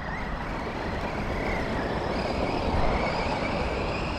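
Losi Lasernut U4 RC rock racer being driven: a faint high whine from its brushless motor that wavers with the throttle and rises a little about three seconds in, over a steady low rumble.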